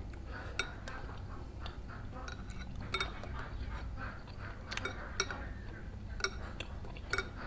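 A metal spoon clinking and scraping against a ceramic bowl while scooping cilok and quail eggs out of broth, giving a string of sharp clinks at uneven intervals.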